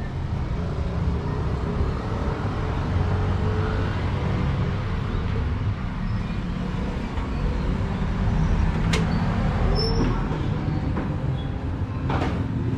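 Steady low rumble of road traffic and vehicle engines, with a couple of sharp clicks in the second half.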